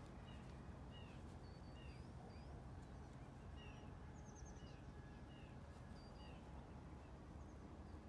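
Faint bird chirps: short sliding notes about once a second, with a quick run of higher notes about four seconds in, over a quiet, steady low background hum.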